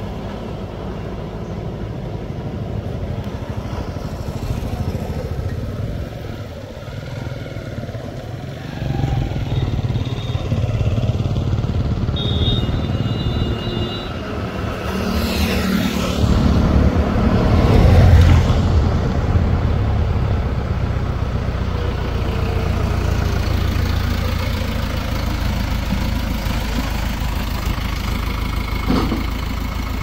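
Heavy diesel machinery engines running. The rumble grows louder about a third of the way in, peaks around the middle, then settles to a steady run.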